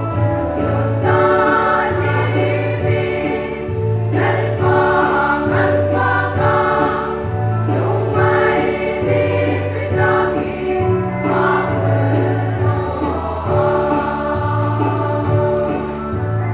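Women's choir singing a hymn in parts, with a low bass accompaniment holding notes under the voices that change every second or two.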